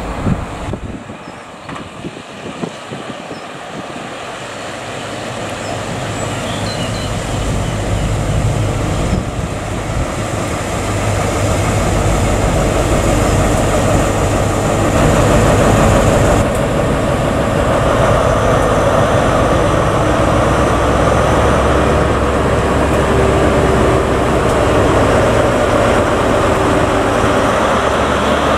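Class 43 HST diesel train (InterCity 125 power cars with MTU V16 engines) approaching and running past along the platform. The diesel engine drone and wheel-on-rail noise grow steadily louder over the first dozen seconds, then stay loud as the coaches and the rear power car pass close by. A steady whine joins near the end.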